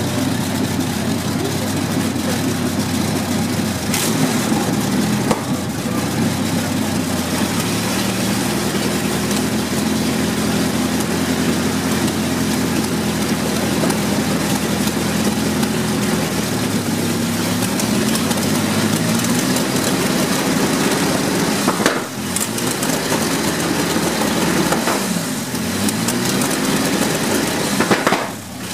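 Big multi-cylinder engine of a vintage racing car running through short open stub exhausts, idling unevenly with the revs rising and falling. The sound dips briefly about two-thirds of the way in and again near the end.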